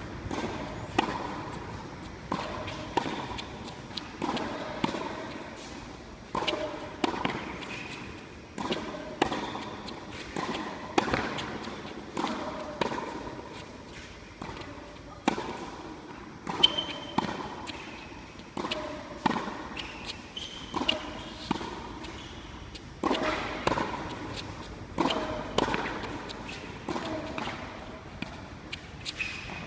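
Tennis rally on a hard court: the ball is struck back and forth by rackets and bounces on the court, giving sharp pops in an even rhythm about once a second.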